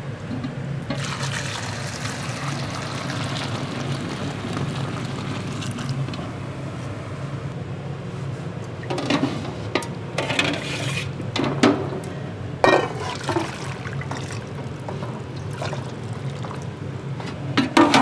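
Liquid pouring and splashing over a steady low hum, followed by a handful of short clatters in the second half.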